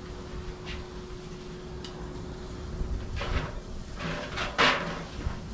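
Two brief noisy sounds from steaks and tongs being worked on a hot Weber Q barbecue grill, about three and four and a half seconds in, the second louder, over a faint steady hum.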